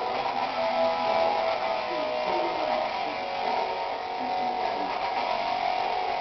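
Guitar music playing steadily, with held and sliding notes.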